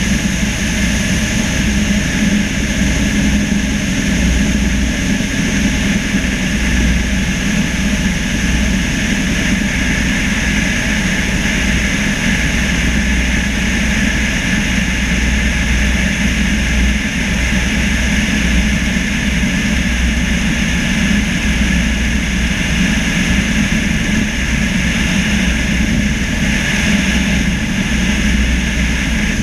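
Single-engine propeller airplane in steady cruise: a constant engine and propeller drone mixed with wind rushing over the wing-mounted camera.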